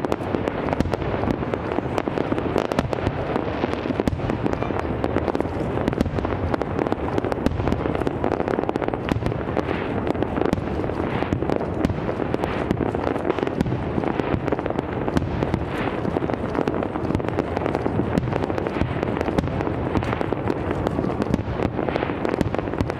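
Aerial fireworks display: a dense, unbroken barrage of shell bursts, with many sharp bangs and crackles overlapping throughout.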